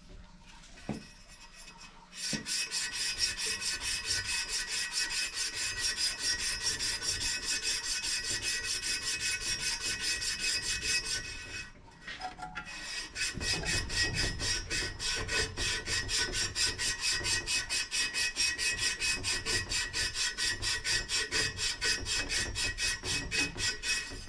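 Abrasive sand cloth pulled back and forth around a copper pipe, shoeshine-style, in quick, even rasping strokes that clean the copper for soldering. The rubbing starts about two seconds in, stops briefly about halfway, then resumes.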